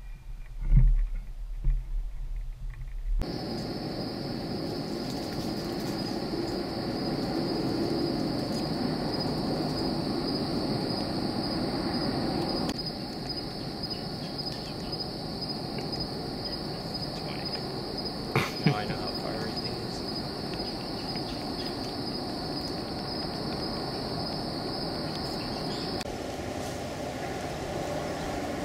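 Insects singing a steady, high, finely pulsing trill that starts a few seconds in and stops near the end, over a soft background hiss. A few thumps sound in the first two seconds.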